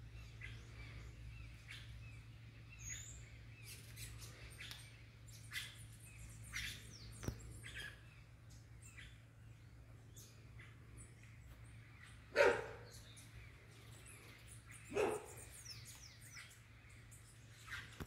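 Small birds chirping in short, scattered calls over a steady low hum, with two louder, short animal calls about twelve and fifteen seconds in.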